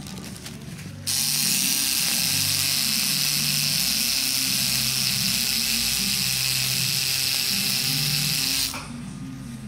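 Electric tattoo machine buzzing steadily as the needle works into skin. It starts about a second in and stops near the end.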